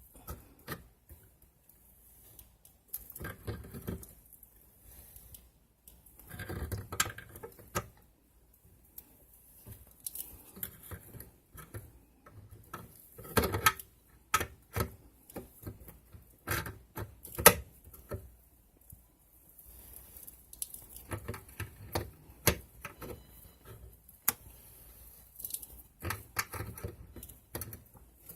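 Irregular clicks, knocks and scraping of a sink drain's nut being tightened by hand and with a tool, plastic and metal parts rubbing and tapping, snugged up against the sink bowl. The clicks come in scattered clusters, with a few sharper knocks about halfway through.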